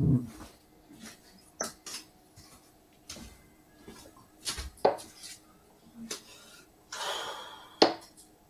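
Handling clatter with metallic clinks: a heavy knock right at the start, then scattered sharp clicks, and a short rustle about seven seconds in that ends in a sharp click.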